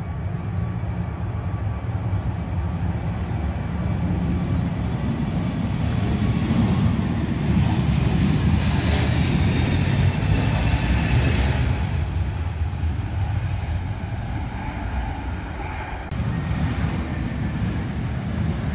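Jet engines of a JetBlue Airbus A321 at takeoff power on its takeoff roll: a deep rumble with a high whine that builds, peaks around the middle, then fades as the aircraft passes. Near the end the sound changes abruptly to another steady jet rumble from an arriving easyJet A321.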